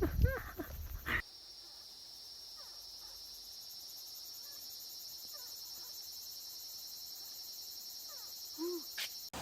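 A few loud barks from a dog cut off about a second in. A steady, high-pitched chorus of insects chirping, typical of crickets, follows, with a few faint chirps over it.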